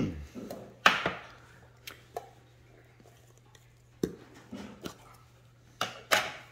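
A handful of sharp, irregular knocks and clicks from a metal tobacco tin and its lid being handled and set down on a table, with the loudest at the start, about a second in, and a pair near the end.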